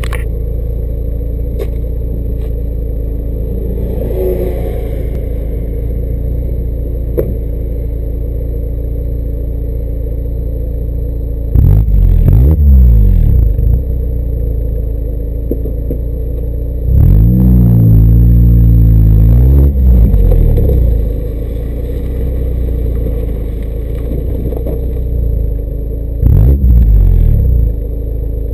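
Stock exhaust of a 2008 MINI Cooper base (R56), its 1.6-litre four-cylinder idling steadily and revved three times, recorded right at the tailpipe. The first rev is short, about a third of the way in. The second is held high for about three seconds around two-thirds in. The last is short, near the end. The sound is a little distorted at the microphone, so it comes across tinnier than it is.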